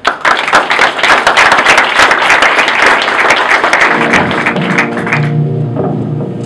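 Audience applauding for about five seconds, the clapping thinning out near the end, while music with steady held notes starts about four seconds in.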